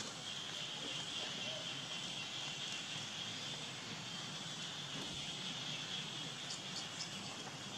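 Steady, high-pitched insect buzzing, holding one pitch throughout, with a few faint ticks near the end.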